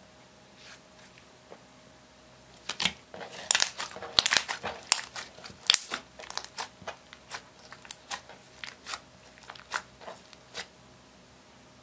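Pink slime made from clear slime mixed with eyeshadow, squeezed and folded by hand, giving sticky clicks, pops and crackles. It is quiet for the first couple of seconds, then breaks into a dense flurry of pops about three seconds in, which thins to scattered single clicks.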